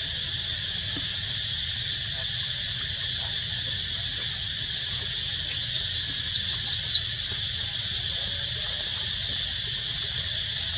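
Steady chorus of insects, a continuous high-pitched drone, over a low rumble, with a few faint ticks about halfway through.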